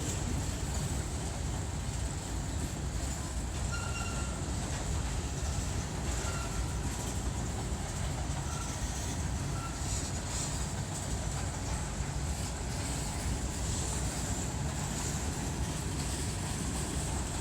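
Freight train of empty grain cars rolling past, a steady wheel-on-rail noise with no break.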